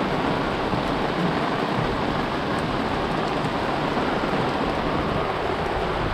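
Steady rain falling on and around a boat, heard from under the boat's top: an even, unbroken hiss of rain.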